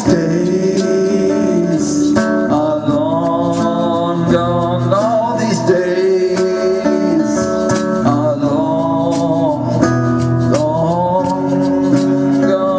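Live acoustic blues band playing an instrumental break: guitars and drums keep the beat under a lead line of long notes that bend up and waver.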